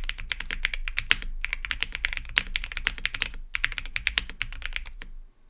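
Fast typing on an Akko ACR75 V2 mechanical keyboard: lubed Milky Yellow linear switches on a polycarbonate plate in a gasket-mounted stacked acrylic case, under SAL doubleshot ABS keycaps. Dense runs of keystrokes with a few short gaps, thinning out and stopping near the end.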